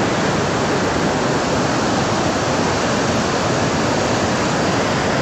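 Floodwater from a burst dam rushing past: a loud, steady noise that holds level throughout.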